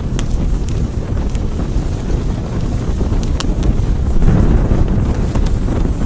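Fire burning with a steady low rumble and scattered sharp crackles, swelling louder about four seconds in.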